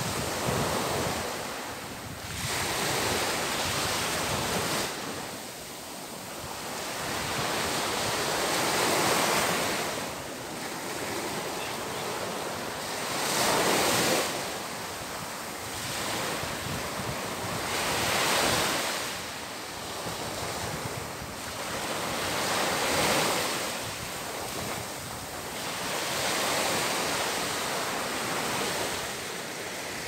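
Small waves breaking and washing up a sandy beach, the surf swelling and easing every four to five seconds.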